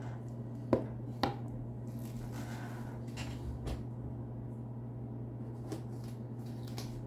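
Small items and packaging being handled: two sharp clicks about a second in, then rustling and a few softer taps.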